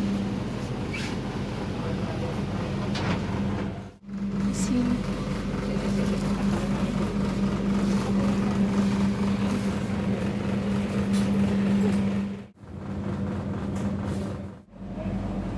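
Steady hum inside a standing passenger-train coach, with a constant low tone and a rushing noise from the coach's air conditioning and power supply. The sound breaks off abruptly three times: about four seconds in, and twice near the end.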